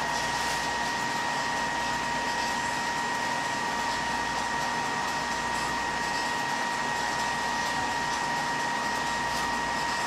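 Computer cooling fans running fast under full CPU load: a steady rush of air with a steady high-pitched whine. The whine is from the CPU cooler fan, which sits with no space between it and the power supply.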